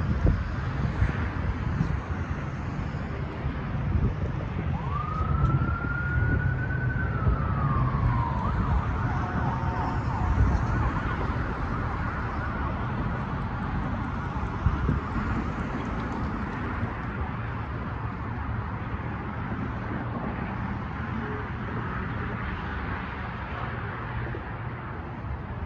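Road traffic driving over a railroad crossing, a steady low rumble of cars. About five seconds in, an emergency vehicle siren wails once, rising, holding, then falling away over about four seconds.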